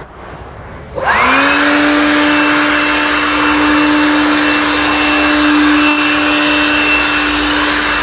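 Cordless battery-powered air blower switched on about a second in: its motor whine quickly rises in pitch, then holds steady over a loud rush of air as it blows dust out of a sliding door track.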